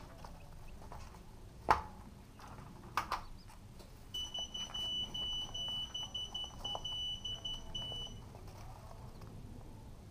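A high, unwavering electronic beep repeating in short, uneven pulses, about three a second, for roughly four seconds from about four seconds in. Before it, a sharp knock a little before two seconds, the loudest sound, and a couple of lighter knocks around three seconds.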